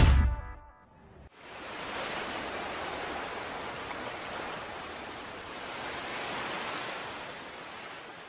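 The music fades out, then sea surf washing onto a sandy beach comes in: a steady rushing hiss that fades away near the end.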